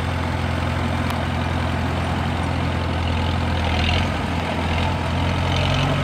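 1941 Farmall H tractor's four-cylinder gasoline engine running steadily at idle, in good running order with great compression.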